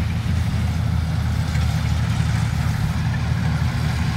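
Rice combine harvester and a tracked rice-hauling vehicle running: a steady, low engine drone with a rushing noise over it.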